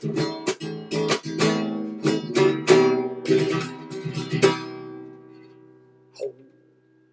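Acoustic guitar strummed in a flamenco style: quick chord strokes, then a last chord left to ring and fade out about four and a half seconds in. A brief faint noise comes just after the chord dies away.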